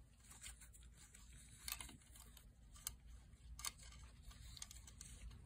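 Near silence with a few faint clicks and light rustles of small parts being handled, over a low steady room hum.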